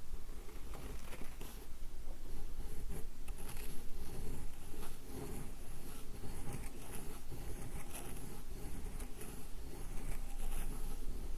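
Sumi ink stick being ground on a wet inkstone: steady back-and-forth rubbing and scraping with small irregular ticks.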